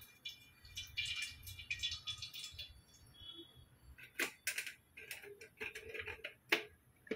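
A plastic spoon scraping and tapping in a plastic salt container as salt is scooped onto raw chicken: light rattling for the first couple of seconds, then a few sharp clicks.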